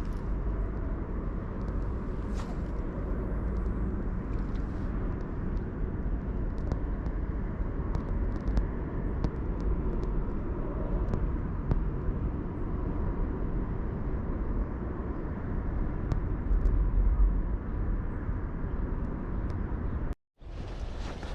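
Steady outdoor background noise: a low rumble with scattered faint clicks, broken by a brief dropout near the end.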